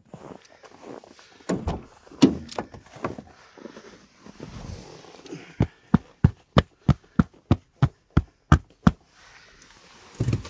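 A person moving about and getting into a car: scattered footsteps and knocks, then a quick run of about a dozen sharp, evenly spaced knocks, about three a second, and a heavier thump near the end, like a car door.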